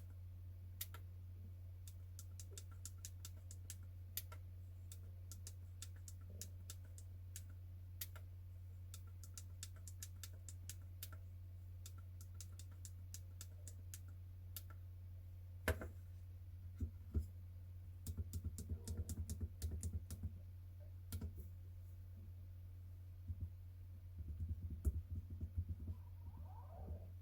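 Keys of a SwissMicros RPN calculator being pressed one after another, each press a short click. The first half has sparse, light clicks; from about halfway they get louder and come in quick flurries. A steady low hum runs underneath.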